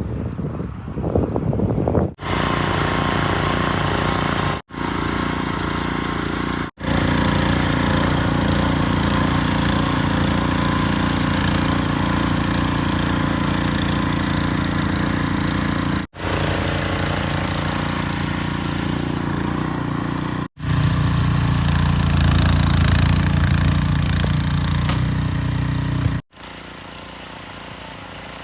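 An engine running steadily, in several short clips that cut in and out abruptly. Its tone and loudness shift a little from clip to clip, and the last clip is quieter.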